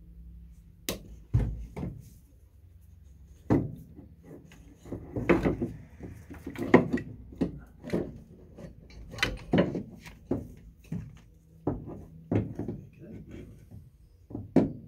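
An alternator being worked out of a car's engine bay, knocking and clunking against the metal of the engine and bodywork: a dozen or so irregular knocks, loudest about a second in, in the middle, and just before the end.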